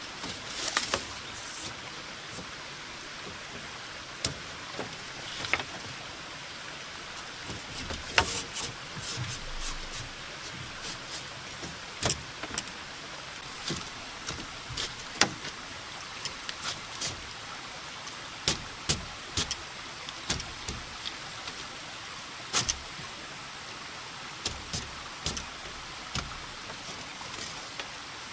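Thin split-bamboo strips clicking, knocking and scraping against the bamboo rails as they are woven in and out of a wall frame. Irregular sharp clicks and short scrapes come over a steady faint hiss.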